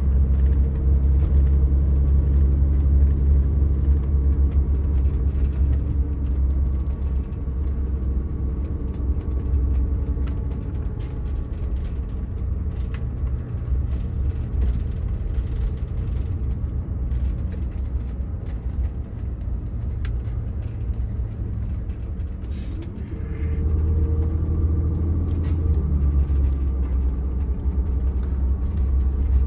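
Steady engine and road rumble heard inside a motorhome's cab on the move, with light rattles and clicks throughout. It eases off through the middle and grows louder again in the last quarter.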